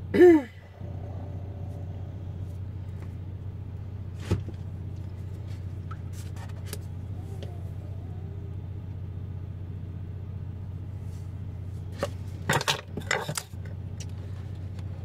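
A steady low hum under light kitchen handling noise: a plastic measuring spoon scooping from the baking soda box and salt canister and tipping into a bowl of flour, with a sharp click about four seconds in and a short cluster of louder clatters near the end.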